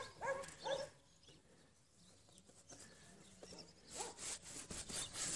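A flat paintbrush scrubbing oil paint onto a canvas in quick, faint rasping strokes, busiest in the last second and a half.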